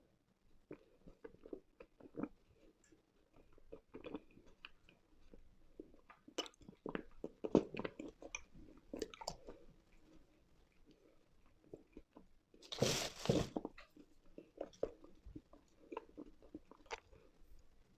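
Dry lumps of eating chalk or clay being bitten and chewed close to the microphone: a string of small crisp crunches and crackles. About two-thirds of the way through comes one louder, longer crunch.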